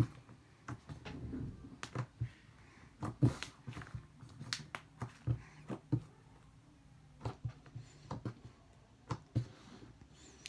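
Slime being poked by hand, its trapped air bubbles popping in sharp, irregular clicks.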